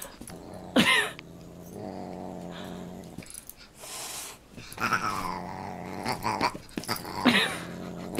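A dog and a Siamese cat play-fighting: low growling, loud sharp cries about a second in and again near the end, and a short hiss about four seconds in.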